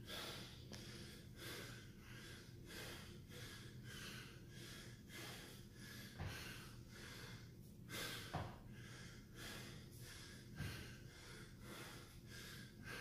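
A man breathing hard and fast while exerting himself, about three forceful breaths every two seconds. A few dull thumps come about two seconds apart.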